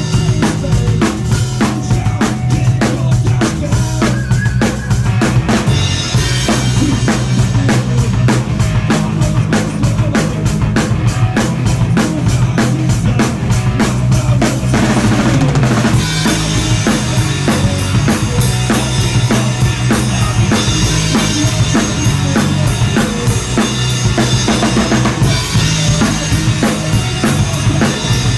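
Rock band playing a song live in a rehearsal room, heard from right beside the drum kit. The loud kick, snare and cymbals sit over bass and guitar, with a singer's voice through the PA. The playing is loud and steady, and the song moves into a different section about six seconds in and again past the middle.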